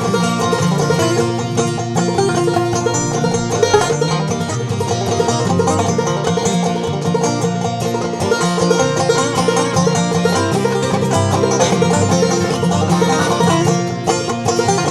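Clawhammer banjo playing an instrumental break in an old-time tune, a steady rhythm of plucked notes with no singing.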